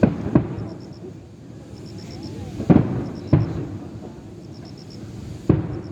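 Fireworks shells bursting overhead: five deep booms with echoing tails, two close together at the start, two more about three seconds in, and one near the end.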